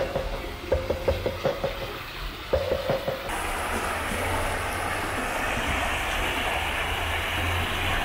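Brief background music fades out, then about three seconds in the steady rush of a shallow stream comes in suddenly: clear water splashing and foaming over rocks around stepping stones.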